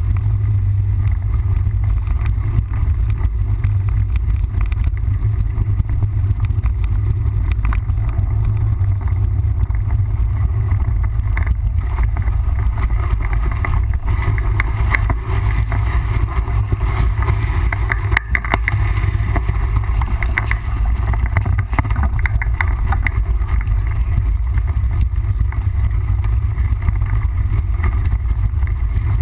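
Steady low rumble of wind buffeting the microphone, with scattered rattles and knocks from a mountain bike riding over a rough trail.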